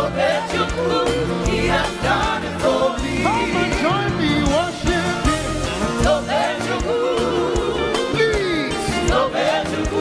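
Live gospel praise music: a band with drums keeping a steady beat, and singing with a lead line that slides and bends up and down in pitch.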